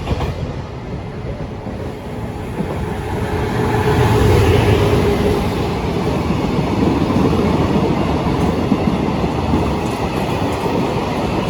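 Freight train running past on the rails, a steady rumble of wheels on track that grows louder about four seconds in.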